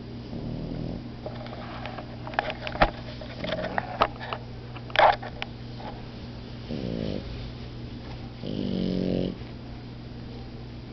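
French bulldog puppies asleep: a run of short snuffles and snorts in the first half, then two rattling snores, the second longer.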